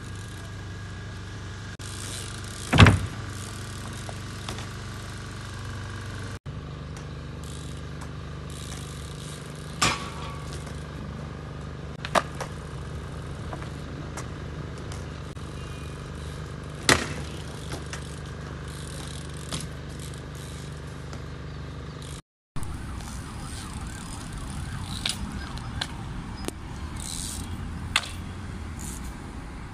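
Several sharp bangs of a mountain bike landing on concrete after hops, the loudest about three seconds in, over a steady background of street traffic.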